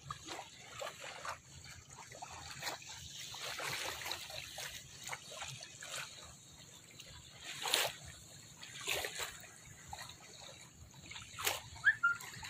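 Small waves lapping and splashing softly on a sandy shore in irregular washes. A short, high rising chirp sounds near the end.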